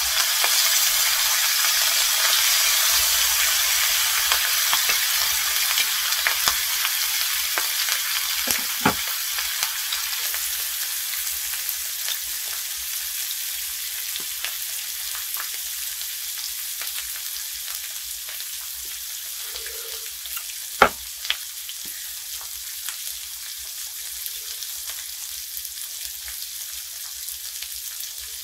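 Thin-sliced pork belly sizzling in a cast iron pan, the sizzle slowly dying down. A few light clicks and one sharper knock about two-thirds of the way through.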